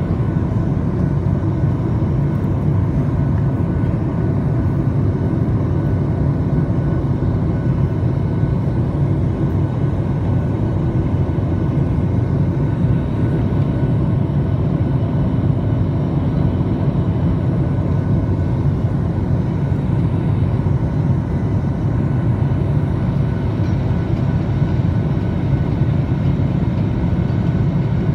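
Steady cabin noise inside a jet airliner in flight: a low rumble of the turbofan engines and rushing air, with a few faint steady whining tones above it.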